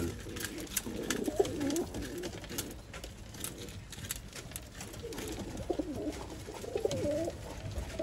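Red Iraqi pigeons cooing: low, wavering coos in two spells, one early and a longer one from about five seconds in, with scattered light clicks between.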